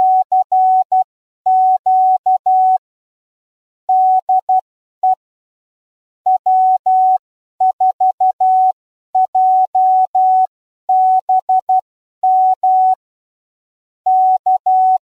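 Morse code sent as a single clean pitched beep, keyed in short and long elements grouped into characters with pauses between them.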